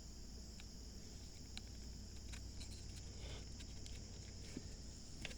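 Faint, scattered light taps and clicks of wooden 2x4 pieces being handled and set in place, over a steady low hum and hiss.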